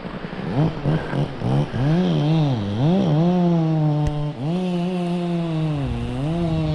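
An engine revving up and down several times, then running at a fairly steady high speed with a brief drop about four seconds in.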